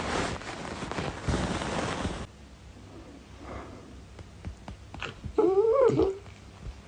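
A rustling noise for about two seconds that stops abruptly, then near the end a dog's short, wavering whine lasting under a second, the loudest sound here.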